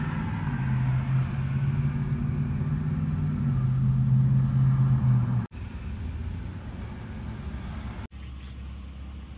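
Steady low rumble and hum of a car running, heard from inside the car. It changes abruptly about five and a half seconds in and again near eight seconds, dropping to a quieter steady noise.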